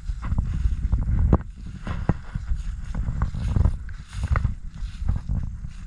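Footsteps through dry grass and fallen leaves, a rapid run of short rustles and ticks, with wind rumbling on the microphone.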